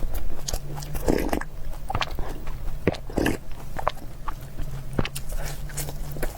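Close-miked eating: chewing with wet mouth clicks and smacks, and louder mouthfuls about one second and three seconds in.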